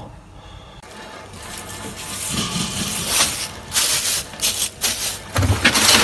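Rustling and clattering of food being handled, with sharp knocks in the middle; near the end a freezer drawer is pulled open.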